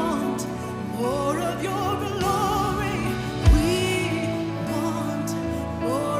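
Live worship music: a singer holding long notes with vibrato over sustained instrumental chords. A single deep low boom sounds about three and a half seconds in.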